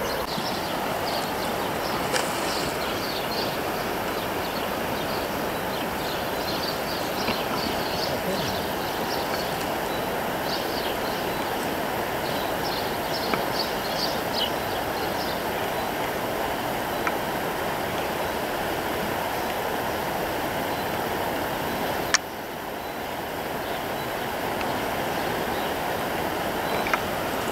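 Steady rush of flowing river water, with short high chirps scattered through the first half. A sharp click about two-thirds of the way through, after which the rush drops quieter and builds back up.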